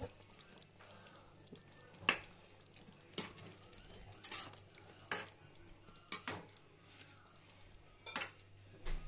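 A metal spoon clinking against the kadhai while stirring thick curry gravy: about half a dozen sharp, separate clinks, roughly a second apart.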